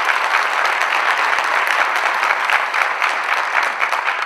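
Audience applauding: many hands clapping in a dense, steady wash that eases slightly near the end.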